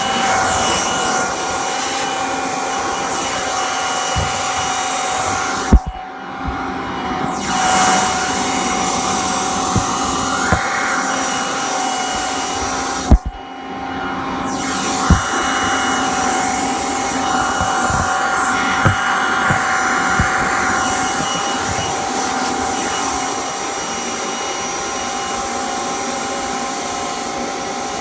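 Kirby Generation 3 upright vacuum running with a steady motor whine and rush of air. Sharp knocks come about 6 and 13 seconds in, each followed by a brief change in the air sound, and a few lighter knocks come later.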